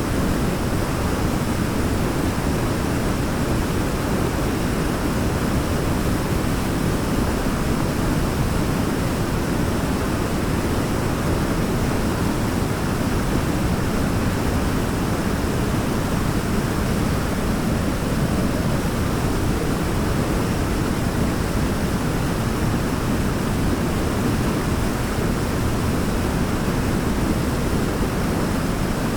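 Waterfall running continuously, a steady rush of falling water heaviest in the low range, with no change in level.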